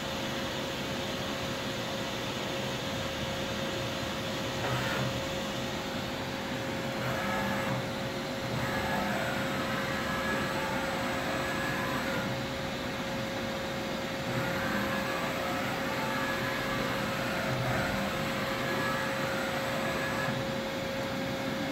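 Doosan DNM400 vertical machining center jogging its axes: the axis drives whine, rising and falling in pitch as the table speeds up and slows down, in several moves starting about five seconds in. Under it runs the machine's steady hum with a constant tone.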